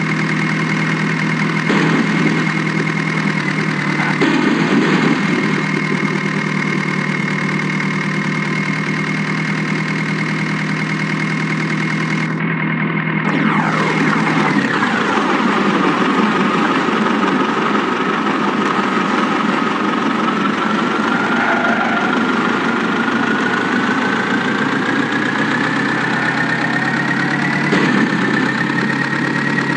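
Heavy diesel engine running at a steady speed. About halfway through its pitch drops sharply, then rises slowly back up over the following seconds, with a high whine riding on it.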